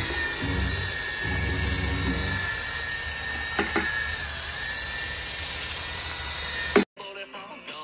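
Cordless drill running at a steady speed, spinning a long mixing rod through a bucket of liquid soft plastic, with an even motor whine. Two short clicks come a little past the middle, and the drill sound cuts off abruptly near the end.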